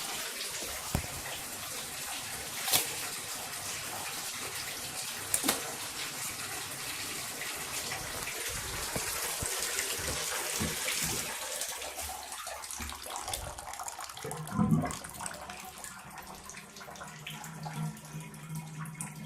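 Bathtub faucet running steadily into the tub to flush the freshly cleared drain, with a few small clicks and a knock about three quarters of the way through, after which the water is quieter.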